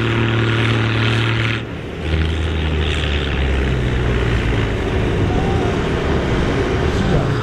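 Air-cooled Deutz diesel tractor engine running under heavy load as it pulls a tractor-pulling weight sled. Its note drops lower, with a brief dip in loudness, about two seconds in, then holds steady.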